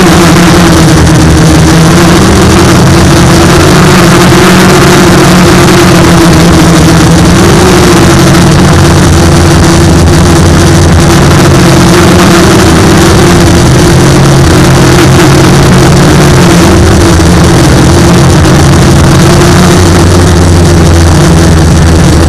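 Aerosky H100 quadcopter's electric motors and propellers buzzing steadily in flight, very loud as heard from its onboard camera, the pitch shifting slightly from moment to moment as it hovers and manoeuvres.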